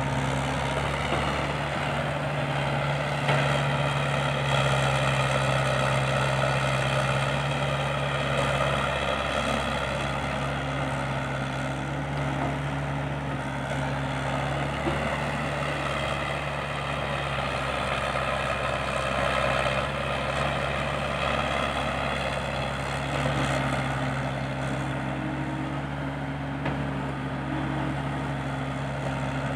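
Komatsu hydraulic excavator's diesel engine running under load while digging and loading, its higher-pitched note rising and falling as the machine works through its cycles.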